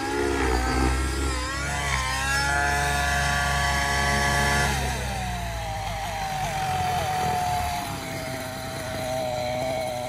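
Two-stroke nitro glow engine and main rotor of an MSH Protos Nitro RC helicopter, its pitch wavering as it manoeuvres low, then holding steady. About five seconds in the pitch drops to a lower, steady drone as the helicopter comes down onto the grass and the engine throttles back.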